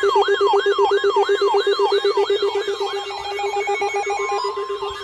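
Electronic emergency-alert tones sounding together: a siren-like rising whoop that repeats about three times a second, over a fast-pulsing low tone. Rapid beeps join in about halfway through. The alarm announces an incoming emergency alert message, here a hurricane warning.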